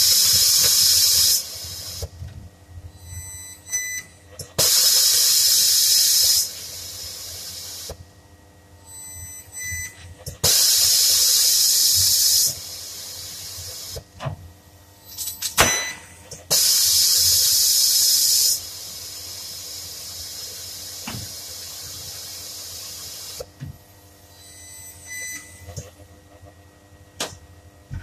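Compressed air hissing from an air-fed body-shop tool in about four separate bursts of roughly two seconds each, a few seconds apart, with a sharp click about fifteen seconds in.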